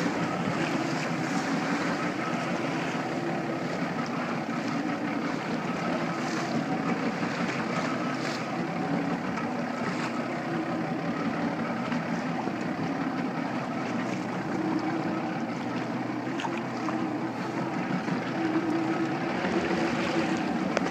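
Motorboat engine running steadily, a constant hum, under wind and water noise.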